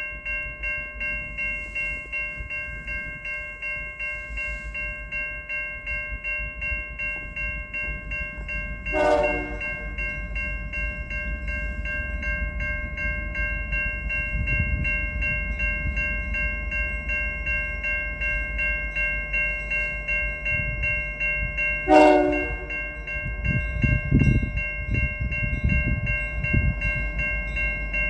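Locomotive bell ringing steadily, about two strokes a second, on an approaching diesel freight train. A low diesel rumble builds in the last few seconds as the trailing GE ES44DC throttles up. Two short horn blasts sound about 13 seconds apart.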